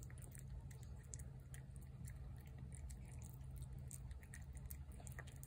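A cat eating food from a plate, heard as a run of quick, faint, irregular chewing clicks over a low steady hum.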